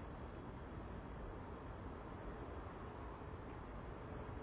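Crickets chirping steadily in a high-pitched, evenly pulsing trill, over a low background rumble.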